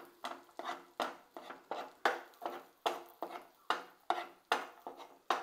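A wooden spatula stirring chopped garlic in melted butter in a nonstick frying pan, scraping and knocking against the pan about three or four times a second.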